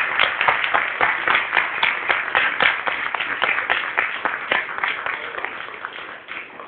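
Audience applause dying away, thinning to scattered claps.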